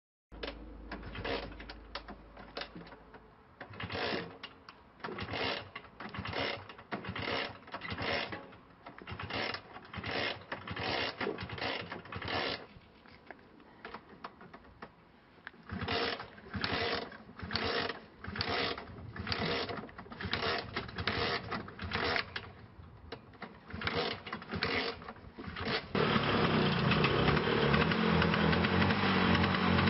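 Classic two-stroke scooter being kick-started again and again: a string of short kick-lever strokes with a ratcheting, mechanical clatter, one or two a second, with a short pause about halfway. Near the end the engine catches and runs steadily.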